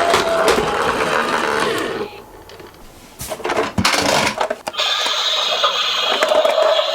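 Miniature toy cars rattling and whirring as they roll along a slope, with a few sharp clicks. The rolling noise drops away about two seconds in, then picks up again.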